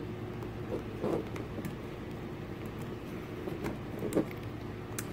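Faint scattered clicks and scrapes of a tool prying at the plastic case of a Garmin nuvi 350 GPS, over a steady background hum.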